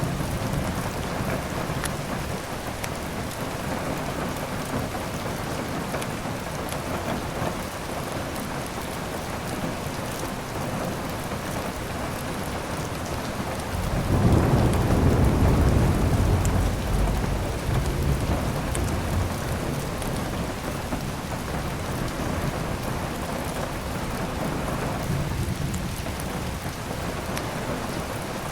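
Steady rain, with a low rumble of thunder rolling in suddenly about halfway through and easing off over a few seconds.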